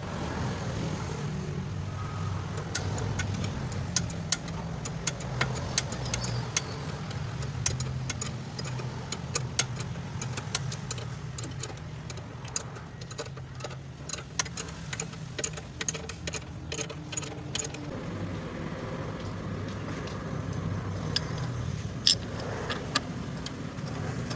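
Quick metallic clicks and clinks of a spanner working a bolt on a car's front lower control arm, over a steady low hum. The clicking thins out in the last few seconds.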